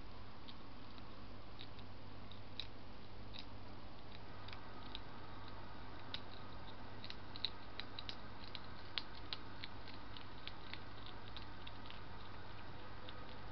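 Hedgehogs chewing dry food: irregular sharp crunching clicks, busiest in the middle of the stretch, with a couple of louder cracks, over a steady low hum.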